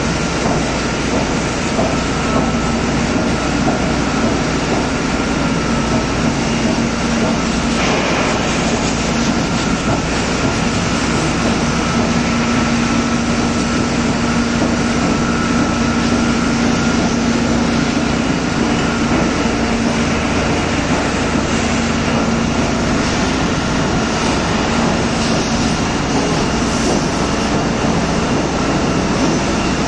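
Heavy shipyard machinery running steadily while moving a ship, a continuous mechanical rumble with a low hum and a fainter high whine that both swell in the middle stretch.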